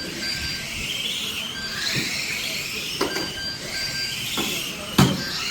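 Radio-controlled stock cars racing, their motors whining up and down in pitch. Sharp knocks come about three seconds in and, loudest, near the end. Short electronic beeps repeat through it.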